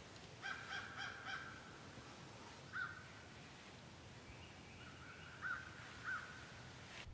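Crow cawing: a quick run of four harsh caws about half a second in, then three shorter single calls spread over the rest.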